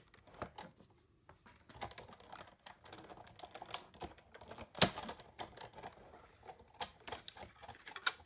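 Hand-cranked Sizzix Big Shot die-cutting machine rolling a plate sandwich with a die and cardstock through its rollers: a run of irregular clicks and clacks, with one sharp, loud clack about five seconds in.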